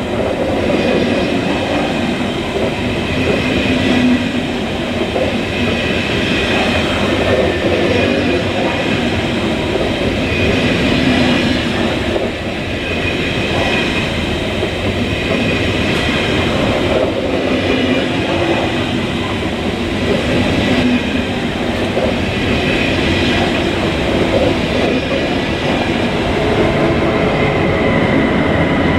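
Train rolling slowly past on the track, a long steady run of rumbling wheel and wagon noise with high thin wheel squeal coming and going.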